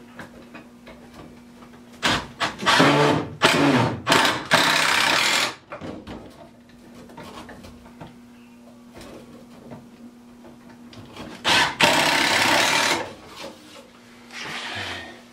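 Cordless Makita driver running in five short bursts, the longest a little over a second, as screws go in to mount drawer slides. A faint steady hum sits beneath.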